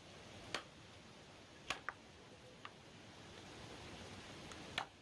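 A hatchet chopping into a raw leg of lamb on a wooden cutting board: sharp chops a little after the start, a quick pair just before two seconds in, a lighter one in the middle, and another near the end, over a faint steady hiss.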